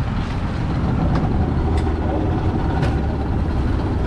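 Motorboat engine running steadily under way, with a deep continuous drone and a few brief knocks.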